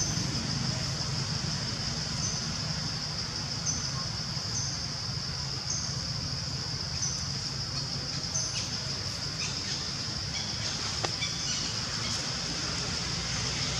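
Outdoor forest ambience: a steady high-pitched insect drone, with short high chirps repeating about once a second and a steady low hum underneath. A few faint short chirps or clicks come through about two thirds of the way in.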